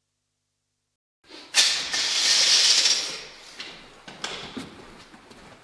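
About a second of silence, then a loud hissing noise that lasts about a second and a half and fades, followed by a few light clicks and knocks of hand work.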